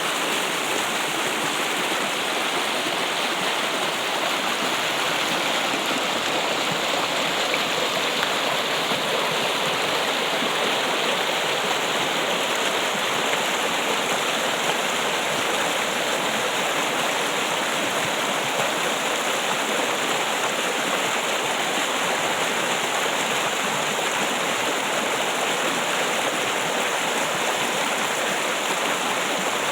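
Water trickling steadily, an even, continuous rush with no breaks or changes.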